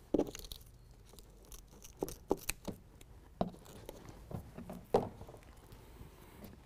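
Hands working short strips of adhesive hook-fastener tape onto a rubber truck-bed liner: scattered taps, rustles and light peeling sounds, with sharper knocks just after the start and about five seconds in.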